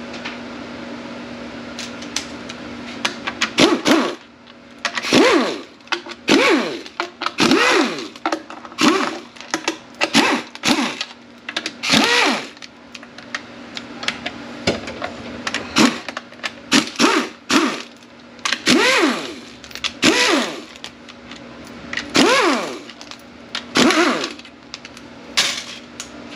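Cordless power tool with an 8 mm socket running out the transmission oil pan bolts one after another, starting about four seconds in. It comes as a dozen or more short runs, each spinning up and winding down.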